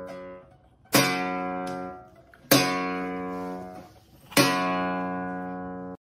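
Open strings of an acoustic guitar strummed by a cat rubbing its head across them: three strums of the same chord, each ringing out and fading.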